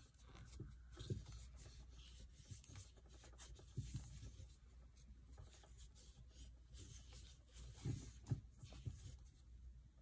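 Faint rubbing and light irregular clicks of a metal crochet hook pulling thick corded yarn through single crochet stitches, with a few soft low thumps from the hands.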